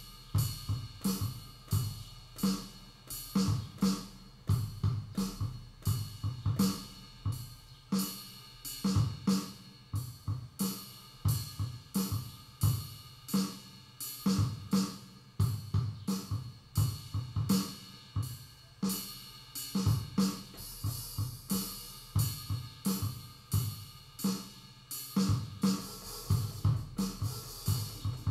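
Electronic music jam: a steady, repeating drum beat of kick, snare and hi-hat over sustained tones.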